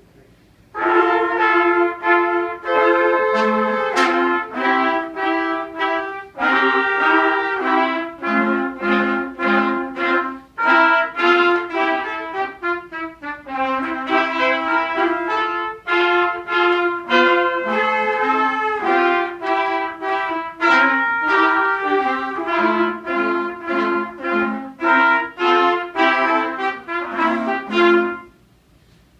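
A quintet of sixth-grade trumpet players performing a contest piece, several trumpet parts sounding together in chords and moving lines. The playing starts about a second in and breaks off for a short rest near the end.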